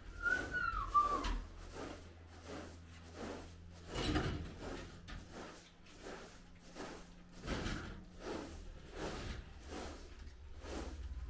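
Short-handled straw hand broom swept across a carpet rug in quick repeated strokes, about two swishes a second. A brief high whistle falls in pitch in the first second.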